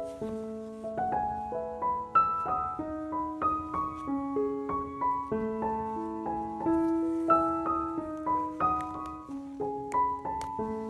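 Background piano music: a gentle melody of single notes over broken chords at an even pace.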